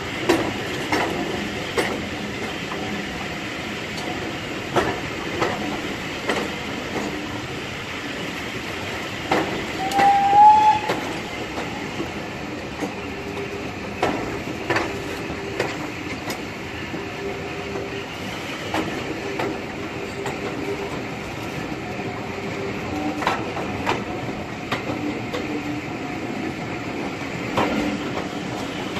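Heritage railway train running, its wheels clicking over the rail joints at uneven intervals above a steady running noise, with a short, slightly rising high-pitched tone about ten seconds in.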